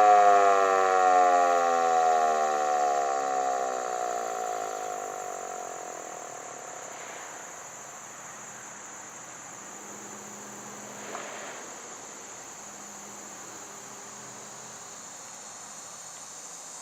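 Federal Sign & Signal Model 2 outdoor warning siren winding down at the end of its attack signal, its pitch falling and fading out over about six seconds. Insects keep up a steady high buzz underneath.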